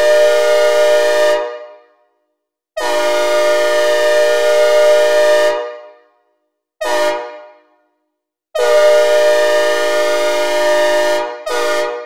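Synthesizer recreation of a Nathan K5LA five-chime locomotive air horn, as on MBTA locomotive 2001, sounding its chord in blasts, each dying away in a reverb tail. The blasts run long, long, short, long, the grade-crossing signal, with a brief extra toot at the very end.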